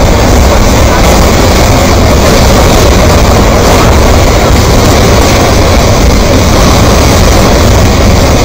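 Debris flow of mud and rocks moving down a stony channel: a loud, steady, low rumble that does not let up.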